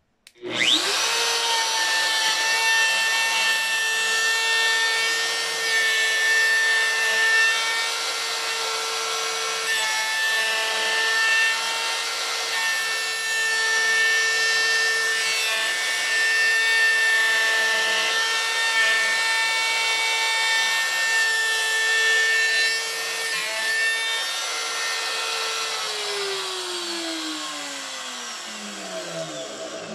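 DeWalt DWP611 compact router starting with a quick rising whine and running at high speed, its bit plunging into and cutting a round hole in a wooden board. Near the end it is switched off and spins down with a falling whine.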